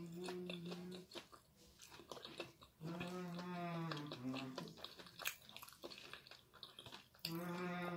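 A woman chewing fried tindok banana with her mouth closed, with small wet chewing and lip-smacking clicks. She hums a long, steady 'mmm' of enjoyment three times: at the start, in the middle and near the end.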